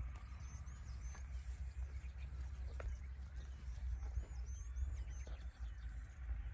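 Calf grazing close by, cropping and chewing dry grass with scattered soft snaps, over a steady low wind rumble. A small bird gives a few quick rising chirps twice.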